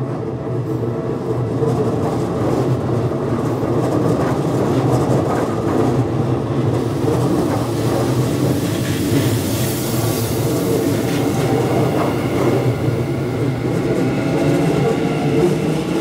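Japanese level-crossing warning bells (Keikyu- and Tokyu-type) ringing steadily while a Keikyu 1000-series electric train runs through the crossing. Its wheel and rail noise builds from about seven seconds in and joins the bells.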